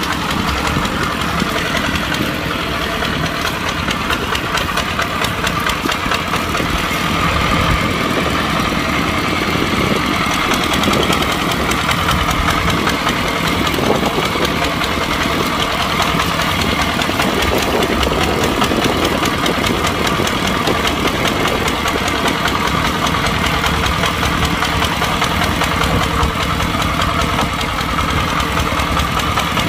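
Kubota tractor's diesel engine running steadily under plowing load, with a dense, even knock from its firing.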